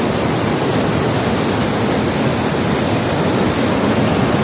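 Swift mountain river rushing through whitewater rapids over boulders: a loud, steady rush of water with an incredibly strong current.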